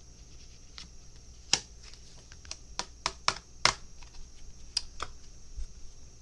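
A handful of sharp, irregular clicks and taps on a hard surface, loudest about a second and a half in and again near the middle, over a faint steady high hiss.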